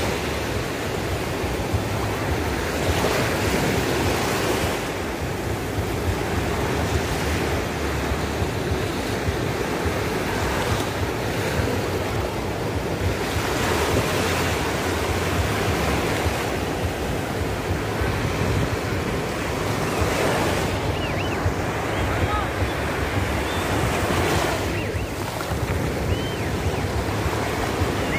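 Sea surf on a sandy beach: waves breaking and washing up the shore, the noise swelling and easing every few seconds. Wind buffets the microphone with a low rumble underneath.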